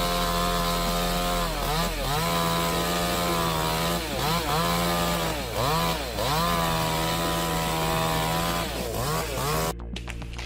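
Chainsaw running at high revs and cutting, its engine pitch dropping sharply and recovering several times as it bogs under load in the wood. The sound breaks off abruptly near the end.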